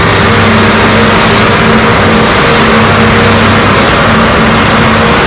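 Hitachi ZAXIS excavators' diesel engines running steadily as the machines dig and swing their buckets, a loud, unbroken mechanical hum with no sharp impacts.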